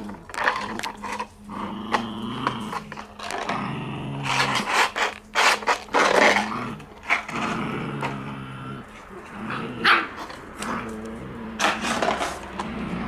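Shiba Inu puppies play-growling as they tug-of-war over a cloth, with short barks in between.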